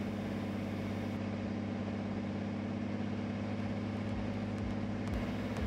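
Cirrus SR22's six-cylinder piston engine and propeller running steadily in level flight, an even low drone heard inside the cabin.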